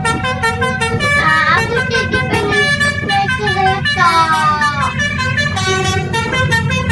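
Telolet multi-tone musical horn playing a quick tune of short notes, with a pitch slide up about a second and a half in and a longer slide down about four seconds in, over a steady low engine rumble.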